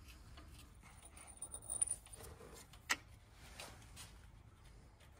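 Faint metal clinks and clicks of bolts and a hand tool being handled at the engine, with one sharp click about three seconds in.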